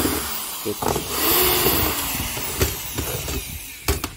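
Electric drill/driver running in spells, its pitch rising and falling as it speeds up and slows, with a few sharp clicks near the end, while the washing machine's mechanical section is being unscrewed for disassembly.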